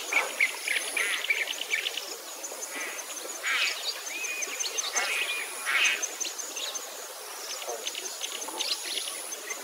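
Several songbirds chirping and trilling in quick bursts, with a few whistled notes about halfway through, over a thin, steady, high-pitched tone that comes and goes.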